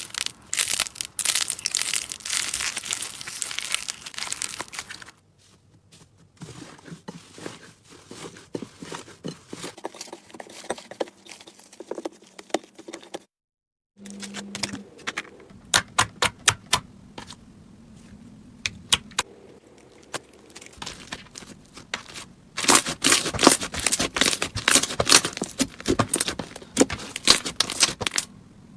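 Slime being handled by hand: crackling, crinkling and sharp clicking in several short clips cut together. There is a brief dead gap about halfway, and the densest crackling comes near the end.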